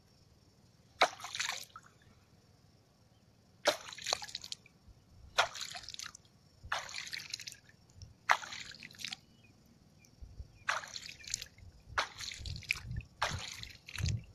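Water splashing close to the microphone: about eight separate sloshing splashes, each sharp at the start and under a second long, coming irregularly every second or two.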